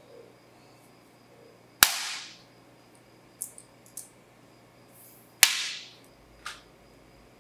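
Small metal pieces set down one at a time on a parchment-lined metal baking sheet: two sharp clacks with a brief ring, about three and a half seconds apart, and a few lighter taps between and after.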